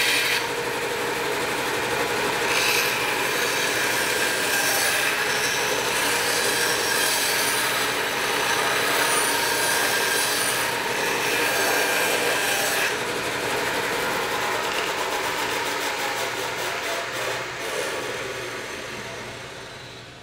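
Bandsaw running and cutting the wedge slot (kerf) into the top of a wooden axe handle: a steady sawing rasp as the wood is fed through the blade. The sound fades away near the end.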